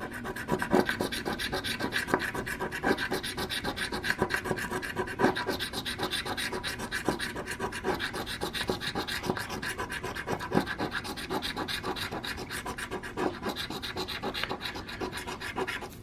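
Scratch-off lottery ticket having its coating scratched off, in quick short strokes one after another without a break.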